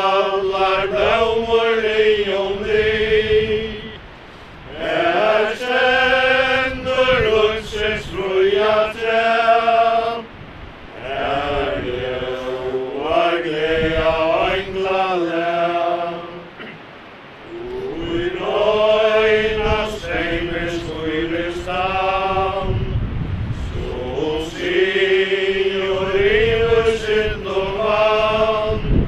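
Mourners singing a hymn together without accompaniment, in five slow, drawn-out phrases with short breaths between them. Wind rumbles on the microphone underneath.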